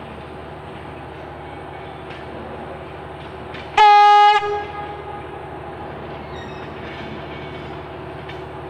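Victorian Railways 63RM diesel-electric rail motor, powered by twin Detroit Diesel 6-71 engines, running steadily as it approaches. Just under four seconds in it gives one short, loud blast on its horn, a single steady note that echoes briefly.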